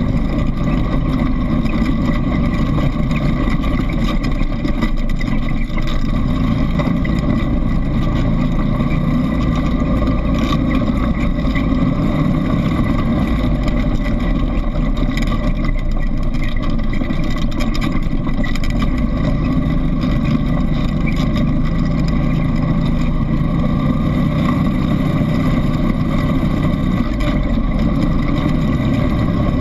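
ATV engine running steadily under way, heard from a camera mounted on the quad's handlebars.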